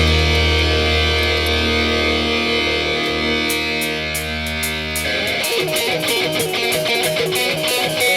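Background rock music on electric guitar: a sustained chord rings and fades, then about halfway through the playing turns rhythmic and busier with a steady beat.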